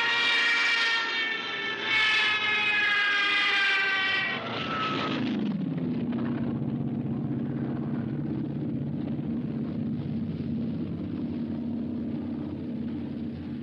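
Single-engine propeller airplane flying past: a strong engine drone whose pitch drops sharply about five seconds in as it goes by, then a lower, steadier drone that fades near the end.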